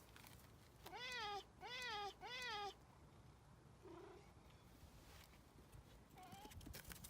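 Stray cat meowing: three meows in quick succession about a second in, each rising then falling in pitch, followed by two fainter short meows.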